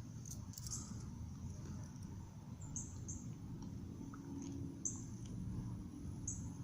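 Faint outdoor background with several short, high bird chirps scattered through it.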